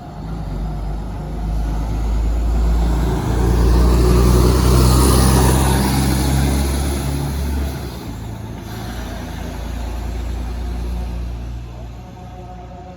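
Diesel engine of a Putra Pelangi intercity bus running as the bus comes up and goes by close, with tyre and road noise. It is loudest a few seconds in, then drops to a lower steady engine sound about eight seconds in.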